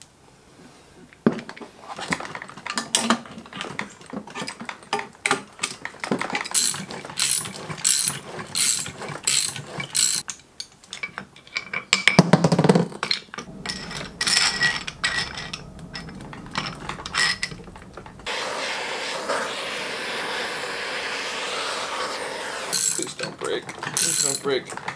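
Ratchet clicking in quick strokes as it turns the forcing screw of a bearing puller, drawing a carrier bearing off a Honda B-series differential held in a bearing separator, with a loud clunk about twelve seconds in. From about eighteen seconds a steady mechanical whirr runs for about four and a half seconds, then the clicking resumes.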